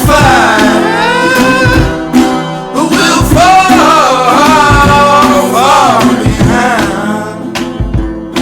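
Music: a sung vocal line, held and sliding through long notes, over acoustic guitar; the voice drops out near the end, leaving the guitar.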